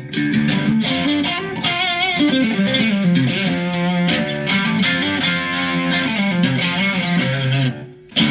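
Mexican-made Fender Stratocaster electric guitar, tuned to drop D and freshly set up, being played: a continuous run of notes and chords with some bent, wavering notes, breaking off briefly near the end before the playing resumes.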